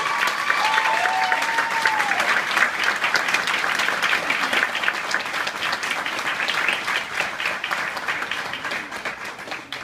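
Wedding guests applauding, with a couple of drawn-out calls in the first two seconds; the clapping fades near the end.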